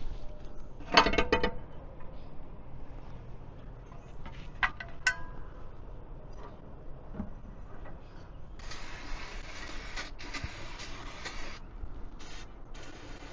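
Metal clinks and rattles of tools being handled, then an aerosol cleaner sprayed: a hiss of about three seconds, a short burst, and another spray starting near the end.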